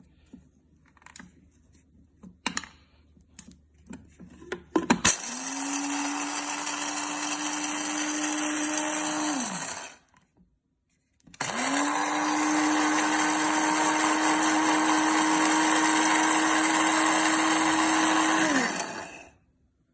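Electric mixer-grinder motor grinding coffee beans in its small dry-grinding jar, run in two bursts with a short stop between: about four and a half seconds, then about seven seconds. Each burst rises in pitch as it spins up and falls as it winds down. A few light clicks come first, about five seconds in, as the jar is set in place.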